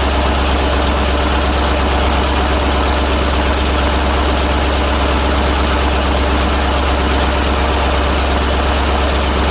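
1948 BUDA 8-DC-1125 straight-eight diesel engine running steadily at an even speed, with a strong low hum and no change in pace.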